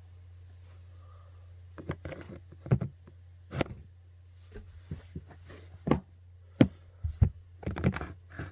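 Irregular clicks and knocks from small hard objects being handled and set down on a desk, starting about two seconds in, over a steady low hum.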